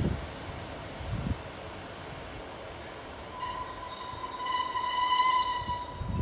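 Class 150 Sprinter diesel multiple unit rumbling slowly into the platform, its brakes setting up a steady high-pitched squeal of several tones from about halfway through that swells and then dies away as it comes nearly to a stand.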